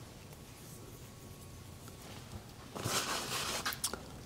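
Quiet handling of small engine parts, a wrist pin and an oil can: a short rustle about three seconds in, then two faint clicks.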